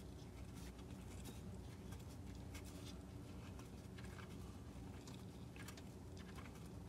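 Faint, scattered light clicks and scrapes of the N20 engine's loosened crankshaft vibration damper bolt being spun out by hand, over a steady low hum.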